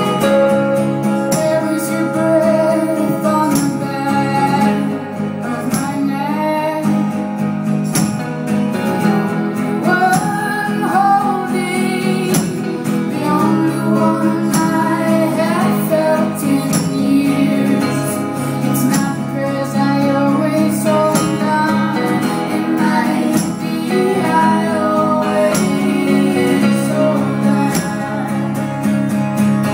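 Live band performance: a woman singing a slow song over strummed acoustic guitar, with drums and cymbals.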